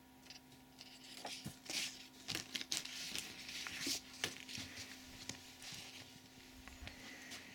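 Paper rustling and crackling in irregular bursts as a printed instruction manual and a loose leaflet are handled and set down.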